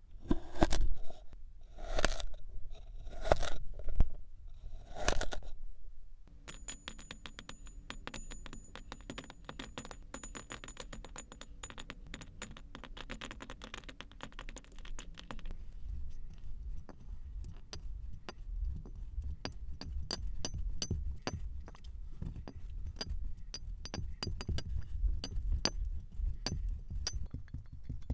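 Kinetic sand being worked with a tool: about five long crunchy scrapes in the first few seconds, then a dense run of fine crackles, and soft low taps mixed in near the end.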